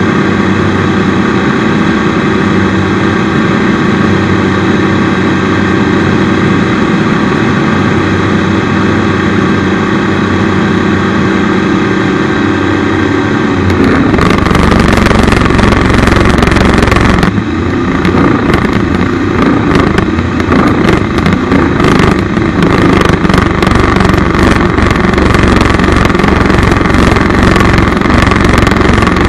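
Rotax 912 UL engine of a Chinook ultralight running steadily in flight, heard from the cockpit. About halfway through it gives way to a louder, rougher rushing sound with deep rumble and rapid crackle.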